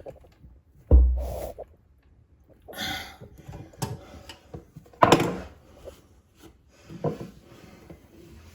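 Knocks and scrapes of hands and tools working on sink drain plumbing: a heavy thump about a second in, a rustling scrape near three seconds, a sharp knock about five seconds in and a smaller one near seven.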